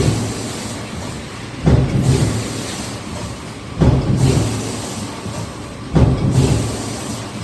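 Hydromec HF4000 forging press cycling: a sudden heavy low surge about every two seconds, three times, each fading away before the next.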